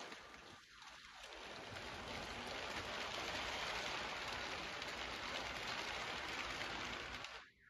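Lego train wagons rolling past on plastic Lego track laid on a hard floor: a steady rolling noise of the plastic wheels on the rails, which cuts off near the end as the train's tail goes by.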